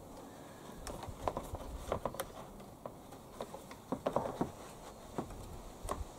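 Scattered light clicks and taps of a rigid plastic grass-collector frame being handled and turned over.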